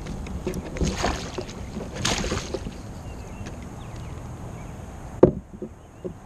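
Handling noise on a kayak as a pike is landed in a net: two short noisy bursts and scattered small knocks and rattles, then one sharp loud knock about five seconds in.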